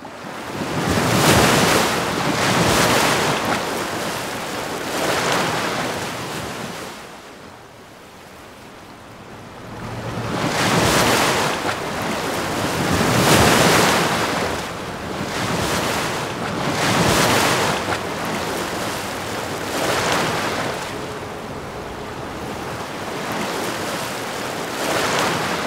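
Water surging and breaking like heavy surf, a flood-water sound effect, in repeated swells that rise and fade every few seconds, with a quieter lull about eight seconds in.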